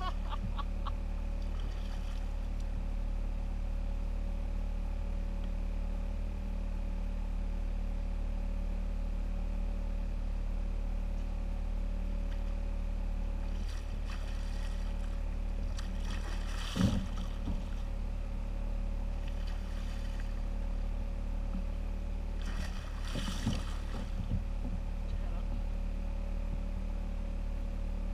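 Hooked tarpon splashing at the surface beside a kayak, in a few short bursts about 14, 17 and 23 seconds in; the one near 17 seconds is the loudest and sharpest. Under it runs a steady low motor-like hum.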